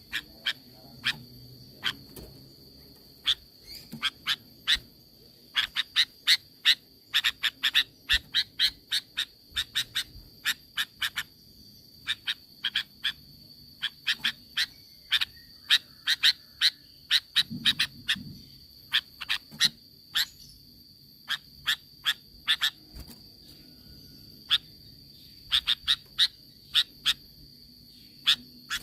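Sooty-headed bulbul (kutilang) giving rapid bursts of short, sharp call notes, several a second, with short pauses between the bursts. A steady high-pitched tone runs underneath.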